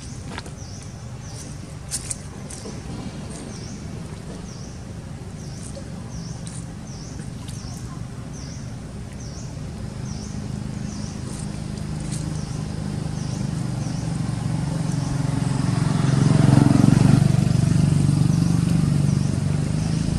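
A motor vehicle's engine drawing near, a low hum that grows steadily louder to its peak about three-quarters of the way through. A high chirp repeats about once a second throughout.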